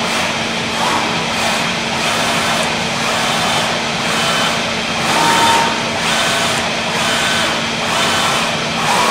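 Zünd G3 digital flatbed cutter running: a steady rushing noise with a low hum, overlaid by short whines that rise, fall and hold as the cutting head's drive moves it across the printed sheets.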